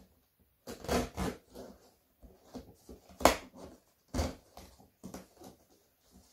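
Cardboard shipping box being handled and its tape cut open: irregular scrapes, taps and rustles of cardboard, with one sharp click about three seconds in.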